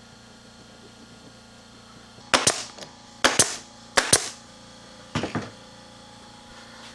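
Four sharp cracks about a second apart, each a quick double, starting about two seconds in; the last is weaker. They are typical of fasteners being driven while a wooden part is put together.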